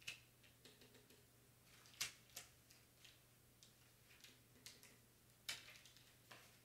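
Faint scattered clicks and crinkles of hands handling a sheet of clear transfer tape with vinyl on it, with a few sharper ticks about two seconds and five and a half seconds in.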